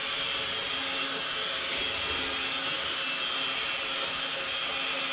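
Small electric hand mixer running steadily at top speed, its beaters churning a stiff, gummy bread dough, with a constant high whine over the motor noise. The little mixer is labouring at its limit against six cups of flour.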